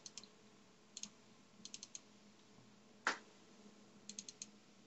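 Faint computer mouse clicks in quick runs of two to four, as folders are opened one after another, with one louder knock about three seconds in.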